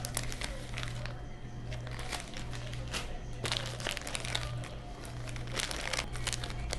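Plastic snack bag crinkling in irregular rustles as it is handled and opened, over a steady low hum.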